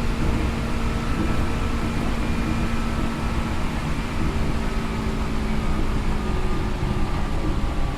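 Seibu New 2000 series electric train running at speed between stations, heard from inside the car: a steady rumble of wheels on rail with faint humming tones from the running gear.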